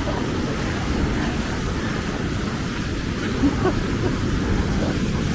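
Heavy surf breaking and washing up the beach as a steady rushing of water, with wind noise on the microphone.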